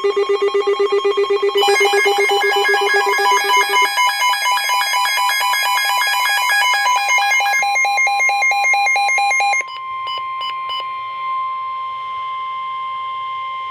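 Electronic emergency-alert tones. A rapidly pulsing ringing tone and a dense jumble of pulsing beeps at several pitches give way, about ten seconds in, to a single steady high attention tone that cuts off abruptly near the end.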